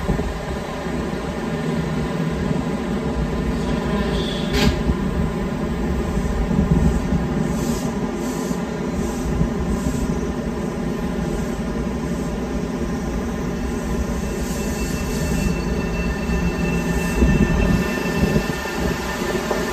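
Semboku Rapid Railway 9300 series electric train standing at the platform with its onboard equipment humming steadily, and a sharp knock about four and a half seconds in. In the second half it starts to pull away, with a higher electric motor whine rising in pitch near the end over the rumble of the cars.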